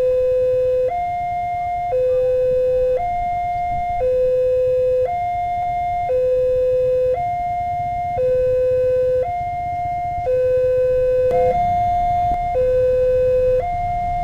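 Railway level-crossing warning sounder sounding its electronic two-tone alarm, alternating a lower and a higher tone, each held about a second: the signal that a train is approaching and the crossing is closed. A low rumble grows underneath about eleven seconds in.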